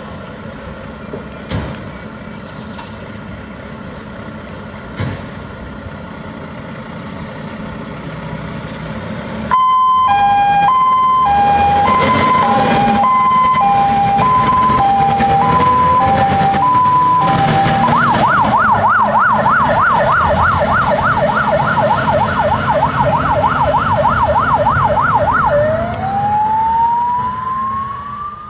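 MAN TGM fire engine's diesel running as it pulls out, then about ten seconds in its siren switches on: a loud two-tone hi-lo, changing at about 18 seconds to a fast warbling yelp, and near the end to one slow rising wail.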